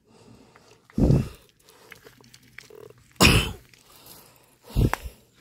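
Three loud crunching footsteps on coral rubble and sand, about a second, three and a quarter and nearly five seconds in.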